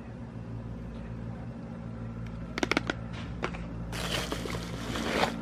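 Bubble wrap rustling and crinkling as a hand works through it, for about a second near the end, after a few light clicks of packaging being handled about halfway through. A steady low hum runs underneath.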